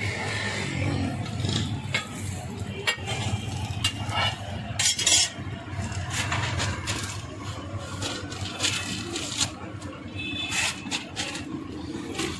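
Metal spatula clinking and scraping on a flat steel griddle, irregular strikes over a steady low hum, with paper rustling near the end as a burger is wrapped.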